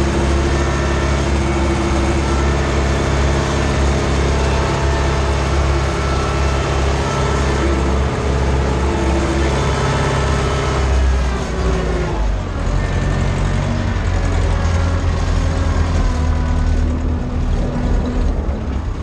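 Ursus C-360's four-cylinder diesel engine running under load, heard from inside the cab while it pulls a seedbed cultivator across the field. About eleven seconds in the engine note drops, then runs steady again at a lower pitch.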